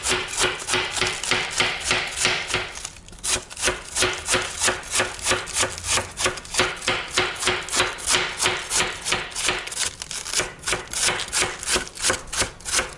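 Kitchen knife shredding a head of cabbage on a cutting board: a quick, even run of crisp cutting strokes, about four or five a second, with a short pause about three seconds in.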